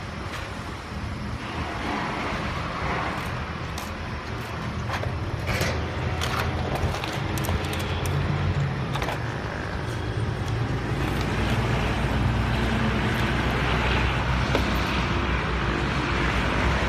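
Steady low motor hum, like an engine running, growing a little louder about halfway through, with scattered sharp clicks and knocks.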